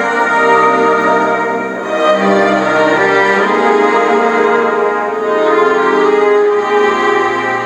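Orchestral music led by violins and other bowed strings.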